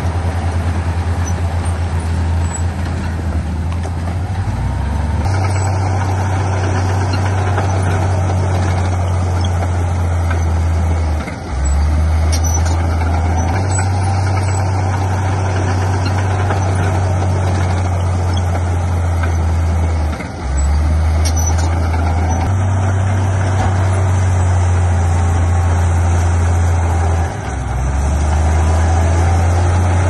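Heavy diesel earthmoving machinery running hard, a deep steady engine drone whose note drops and picks up again several times, with a few faint knocks.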